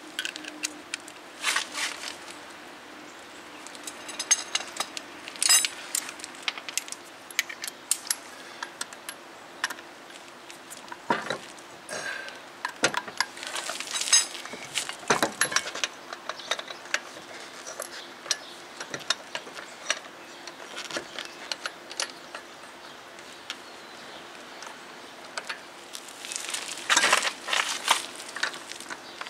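Metal lug nuts clinking and clicking as they are handled and spun by hand onto the wheel studs of an alloy wheel, with a quick run of even ticks a few seconds in and a busier cluster of clinks near the end.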